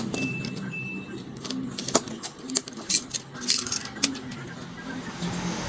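Metal clicks and snaps of a MAX stapler's steel staple channel being pressed and fitted into its plastic body by hand: several sharp, irregular clicks, the loudest cluster about two to four seconds in.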